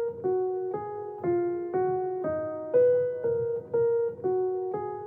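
Music: a keyboard in a piano-like voice playing a slow melody of single notes, about two a second, each struck and fading.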